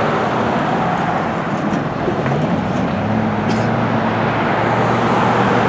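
Road traffic driving past on a busy street: a steady wash of car tyre and engine noise.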